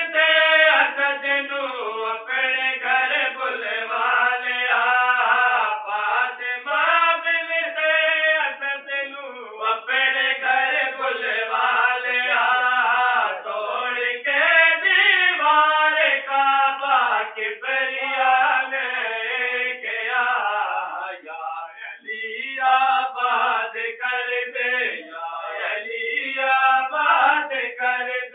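Men's voices chanting a devotional recitation together in long sung phrases, with two brief pauses for breath.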